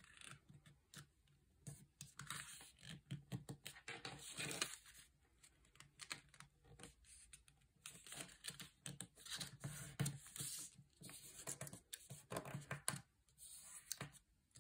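A square of origami paper rustling and crinkling in faint, irregular bursts as it is folded by hand and its crease pressed flat, with light taps and scrapes of fingers on the paper.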